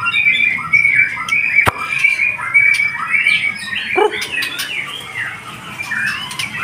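Caged white-rumped shamas (murai batu) calling: a dense run of short, repeated chirps, with one sharp click a little under two seconds in.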